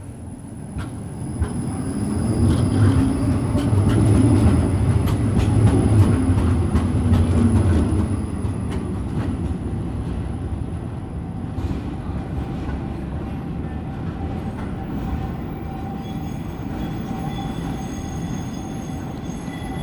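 Škoda 15T tram pulling away from a stop and passing by: its traction motors whine and its wheels rumble and click over the street track. The sound is loudest a few seconds in and then fades as the tram moves off. A thin, steady high squeal comes in near the end.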